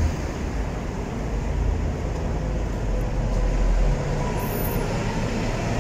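Steady low rumbling background noise, easing a little about four seconds in.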